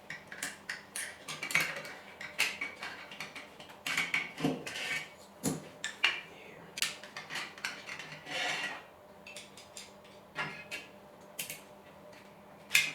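Small metal parts of a mini machine-tool kit being handled and taken apart: irregular clicks and clinks of metal pieces, with a few short stretches of light scraping.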